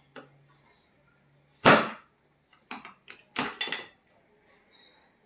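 Sharp cracks during a chiropractic adjustment: one loud crack, then a quick run of four more about a second later.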